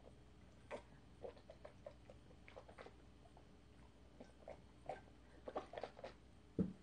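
A person drinking from a ceramic cup: a run of soft gulps and small swallowing clicks, then a single knock near the end as the cup is set down on the table.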